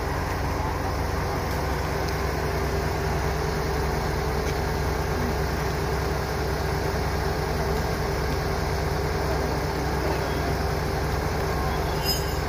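Diesel engine of the Futatsuboshi 4047, a KiHa 47-series railcar, idling steadily while the train stands at the platform.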